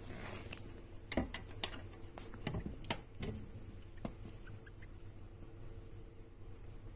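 Djungarian hamster giving a handful of short, sharp squeaks, bunched in the first four seconds or so, over a faint steady hum.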